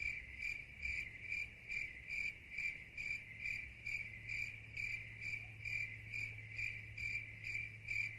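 Crickets chirping in an even rhythm, about two to three chirps a second, over a faint low hum: the stock comic "crickets" sound effect that stands for an awkward silence.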